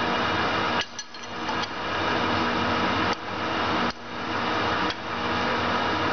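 Metal clunks and clinks as the tailstock clamp levers of a LeBlond Makino lathe are worked by hand: a few knocks about a second in, then more around three to five seconds in, over a steady machine-shop hum.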